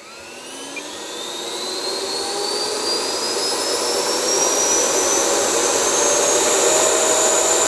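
FMS Futura's 64mm 11-blade electric ducted fan throttling up: a whine with rushing air that climbs steadily in pitch and loudness, then levels off near full throttle toward the end.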